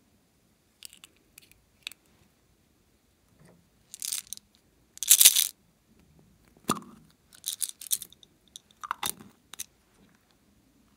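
Crinkly, crunchy handling noises as hands work plastic slime containers and toys over a glass tray of glittery slime: a string of short crisp rustles and clicks, the loudest a dense crunch about five seconds in.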